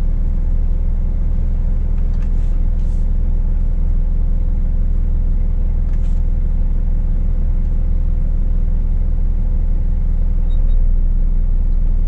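Scania S500 truck's diesel engine running steadily, heard from inside the cab: a constant low-pitched sound with a faint steady hum above it and a few faint ticks.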